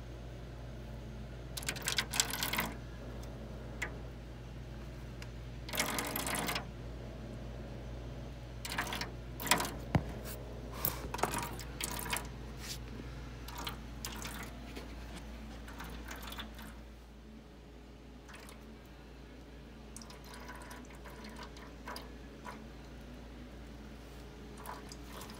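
Thin stream of old red antifreeze trickling from a radiator drain into a foil pan, broken by several short bursts of handling clatter as a wire is worked into the blocked drain on the other side. A steady low hum runs underneath and drops away a little past halfway.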